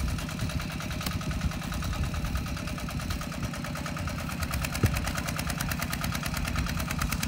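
Diesel tractor engine idling steadily with an even, fast firing rhythm, plus two short knocks several seconds apart.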